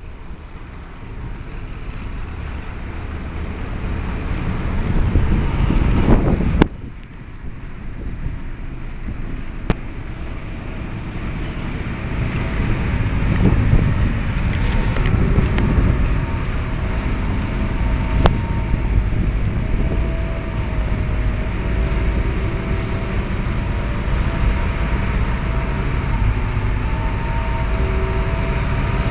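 Wind buffeting the microphone with a low rumble while cycling, dropping off sharply about six and a half seconds in. Then a Hitachi wheeled excavator's diesel engine runs with a steady low rumble, over a faint whine that comes and goes.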